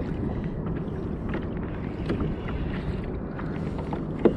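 Wind buffeting the microphone and water lapping against a plastic kayak hull, a steady low rush, with a few faint clicks and knocks.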